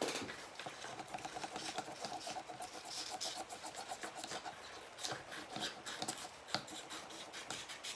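Crayon scratching back and forth on paper in many quick, short strokes as a small piece of paper is coloured in.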